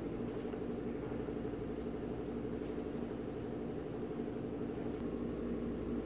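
Steady low machine hum with a faint rumble beneath, unchanging throughout.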